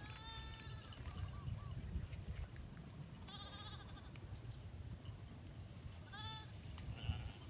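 An animal bleating: three short, quavering calls, at the start, about three seconds in, and about six seconds in, over a low steady rumble.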